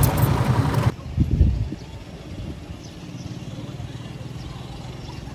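A motor-vehicle engine running close by, a steady low drone that stops abruptly about a second in. A few low thumps follow, then a quieter, steady low rumble of traffic.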